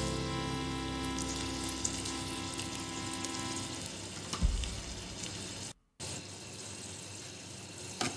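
Oil sizzling steadily in a miniature wok as broccoli fries, under a few sustained music notes that fade out over the first four seconds. A short thump about four and a half seconds in.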